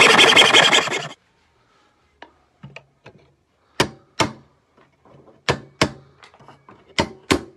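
A handsaw stroke through wood in the first second, then a hammer striking a chisel to chop out notches in a wooden boat frame: a few light taps, then sharp knocks that come in pairs about half a second apart.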